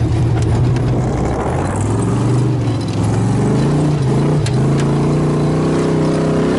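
Chevy 350 V8 in a 1975 Toyota FJ40 Land Cruiser revving hard as the truck drifts around a tree on a dirt trail. The engine pitch climbs about two seconds in, drops briefly past the middle, then rises again and holds high.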